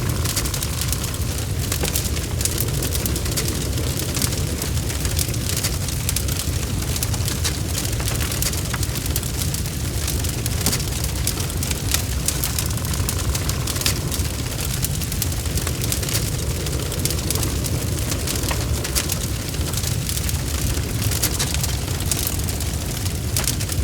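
Wood fire in a fireplace burning with a steady low rumble, with frequent small crackles and pops throughout.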